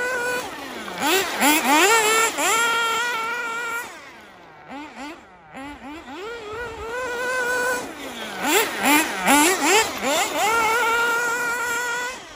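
Kyosho MP9 TKI4 nitro buggy engine revving hard in repeated throttle bursts. Its pitch climbs steeply with each blip and holds high, then drops back as the throttle is released, about four seconds in and again near the end. The new engine is still running a bit rich.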